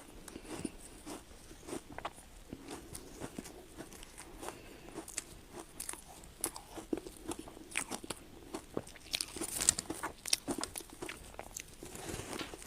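Ice being bitten and chewed, a run of irregular sharp crunching cracks that come thickest about nine to ten seconds in.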